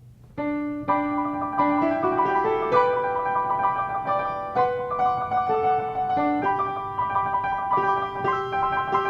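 Piano music, a melody of held notes moving step by step, with a short break right at the start before it picks up again.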